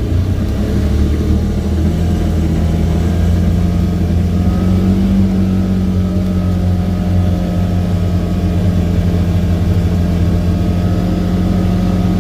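2018 Polaris Ranger 900 XP side-by-side's engine droning steadily while driving, heard from inside its hard-enclosed cab, which has no sound deadening.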